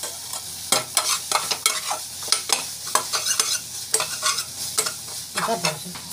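Metal spatula stirring and scraping an onion-tomato masala frying in a metal pot, over a steady sizzle. The scrapes come irregularly, about two a second.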